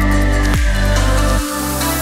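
Electronic background music with a heavy bass line and a strong beat a little under once a second. A high tone glides slowly downward through it, and the deep bass drops away about one and a half seconds in.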